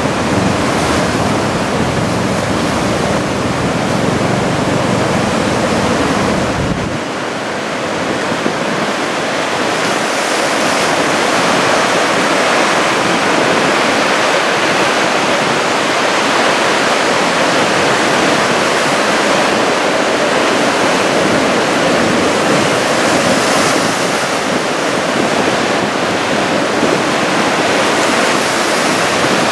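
Heavy typhoon surf breaking and washing ashore, a steady loud roar of water. A low rumble under it cuts off abruptly about seven seconds in.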